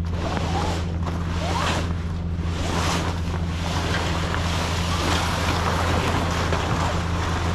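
Heavy vinyl tarp rustling and flapping in swells as it is dragged off a flatbed load of lumber, over the steady low hum of an idling truck engine.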